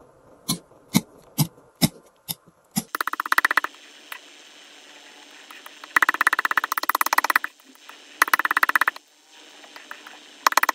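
Palette knife spreading thick paint across paper: a few sharp taps at first, then bursts of rapid, sticky crackling as the blade drags through the paint.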